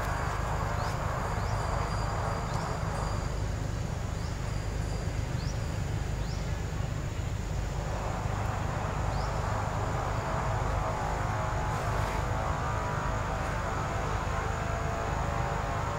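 Steady high insect drone with a scattering of short rising chirps, over a constant low rumble.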